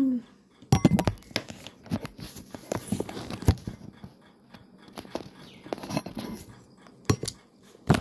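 Handling noise: irregular clicks, taps and rubbing as the recording phone is moved about over a wooden table, with a few sharper knocks, the loudest about three and a half seconds in.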